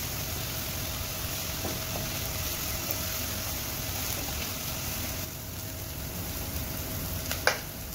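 Chopped onions sizzling in oil in a non-stick pan while being sautéed, stirred with a wooden spatula. The sizzle is steady and drops a little about five seconds in.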